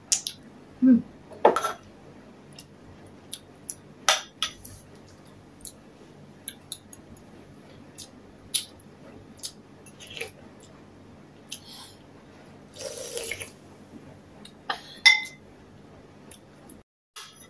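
Eating soup with a metal spoon: scattered light clinks of the spoon against the bowl and pot, with slurps of the soup about a second in and again near thirteen seconds, and quiet chewing between.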